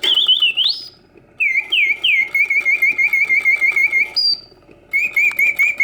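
1950s Karl Griesbaum singing bird cage's mechanical bird singing on its continuous setting: a whistle-like song of fast repeated chirps and trills in three phrases with short pauses between them, with a single higher note ending the middle phrase. The song is in full voice, hitting all its oscillating notes, the sign of a mechanism working properly.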